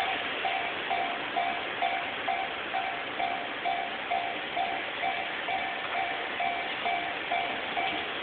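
Japanese railway level-crossing warning bell ringing its repeated electronic 'kan-kan' tone, about two and a half strikes a second, over a steady rushing noise.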